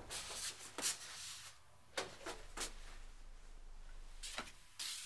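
A digital front-door lock being opened and the door let open: a handful of short, faint clicks and knocks at irregular intervals.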